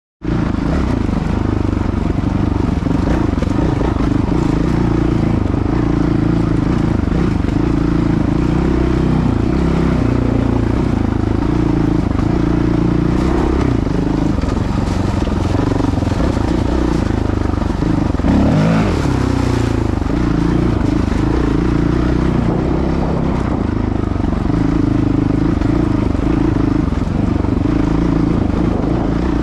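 Honda CRF450L dirt bike's single-cylinder four-stroke engine running under way, its pitch rising and falling with the throttle.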